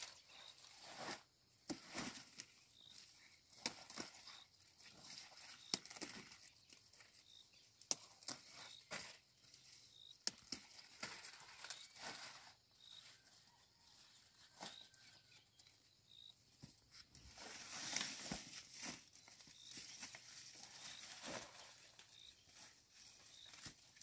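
Leaves and twigs rustling and crackling, with scattered small knocks. A faint, short, high chirp repeats every second or so.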